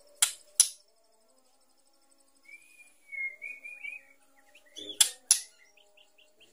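Female white-rumped shama calling: two sharp, loud call notes, then a short soft warbling phrase, then two more sharp notes. These are the calls of a female in breeding condition. A faint steady insect buzz runs underneath.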